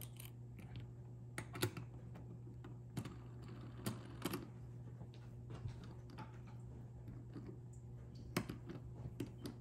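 Scattered small clicks and taps as a ball bearing is turned and pressed into a fidget spinner's bearing seat, irregular and a second or so apart. A steady low hum lies underneath.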